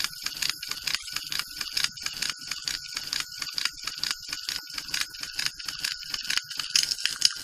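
Antique doll phonograph mechanism running with an even, rapid clicking, about five clicks a second, over a faint steady whir and hiss.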